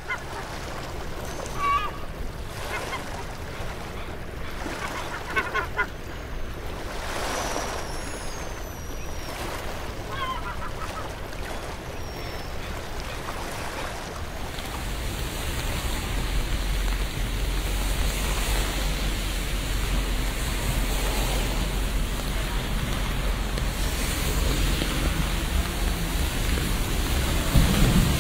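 Outdoor ambient field recording: a wash of steady noise with short bird calls scattered through the first half. About halfway in it changes to a denser, steady noise with a deep rumble.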